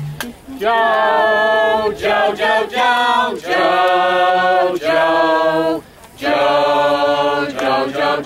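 Voices singing a cappella in long held notes, phrase after phrase, with short breaks between them.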